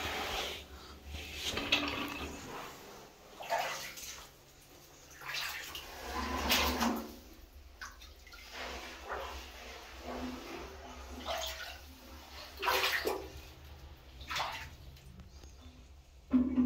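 Shallow water in a concrete sump splashing and sloshing in short irregular bursts every second or two as someone wades and moves about in it, with a small-room echo.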